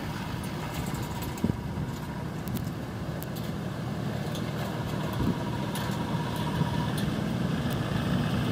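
Chevrolet Silverado 2500HD pickup's engine running steadily as the truck drives past and away.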